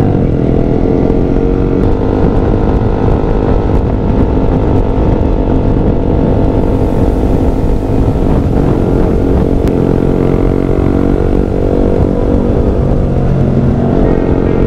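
Yamaha R15 V3's 155 cc single-cylinder engine running at steady cruising speed, with wind rushing over the microphone. The engine note shifts about eight seconds in and again near the end.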